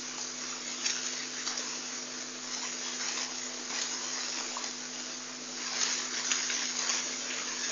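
Steady background hiss with a low, even hum underneath and a few faint scattered clicks.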